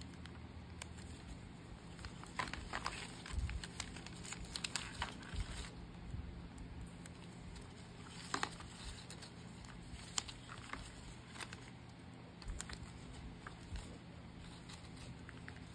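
Hands packing an order: packaging rustling and crinkling, with scattered light taps and clicks. The handling is busiest a few seconds in, and a couple of sharper clicks come around the middle.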